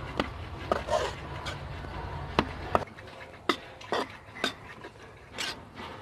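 Metal spatula scraping and knocking against a karahi (wok) while stirring wheat flour roasting in ghee, in irregular strokes. A low rumble underneath drops away about three seconds in.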